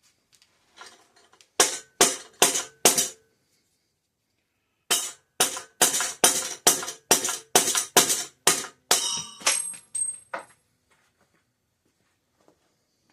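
Sharp metal-on-metal hammer blows with a short ring, knocking a part out of a bicycle frame: four blows about half a second apart, then after a pause a steady run of about a dozen more that fades out near the end.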